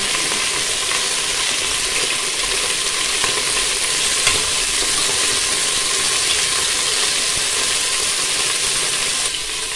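Oxtail pieces sizzling steadily as they brown in hot oil in an aluminium pressure cooker, with light crackling, while a metal spoon stirs and turns them. The sizzle eases slightly near the end.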